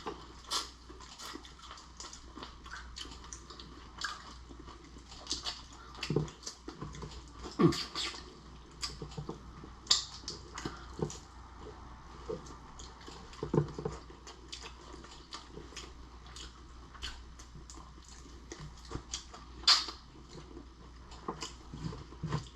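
Close-up eating sounds of cooked shrimp and lobster: wet chewing, lip smacks and sharp clicks of shell, scattered irregularly.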